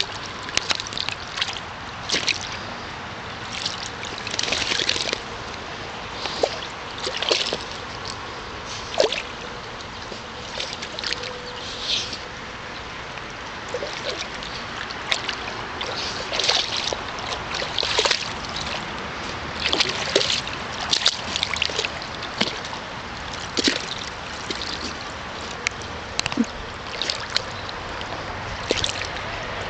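A dog pawing and stepping in the shallow water of an inflatable kiddie pool, making irregular splashes and sloshes, sometimes several in quick succession.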